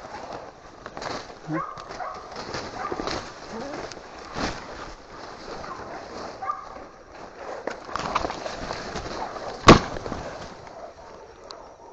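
Brush crackling with short, scattered barks or yelps from hog dogs, and one sharp, loud crack near the end.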